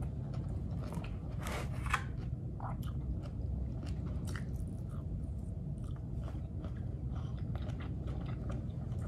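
A person chewing and crunching mouthfuls of mustard greens and rice close to the microphone, in many small irregular crackles, over a steady low hum.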